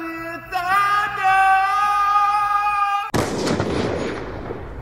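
A man singing a long held note, cut off about three seconds in by a sudden explosion-like crash sound effect that dies away over a second or so.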